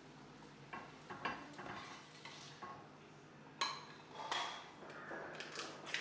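Steel spatula scraping and tapping against an iron frying pan, with a few sharp metallic clinks; the loudest is about three and a half seconds in.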